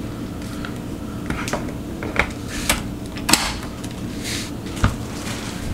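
Sharp plastic clicks and knocks of a Mockingbird stroller's rear wheel being worked onto the frame's leg, about five of them spread over a few seconds.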